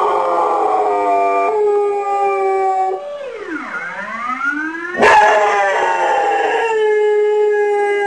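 Dog howling along with a wailing siren alarm. The siren holds a steady tone, dips and rises back, and repeats about every six seconds. About five seconds in, the sound turns suddenly louder and rougher.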